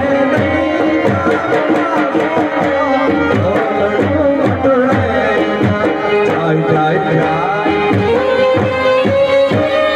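Live Indian folk music: a harmonium playing a melody over a steady, rhythmic hand-drum beat.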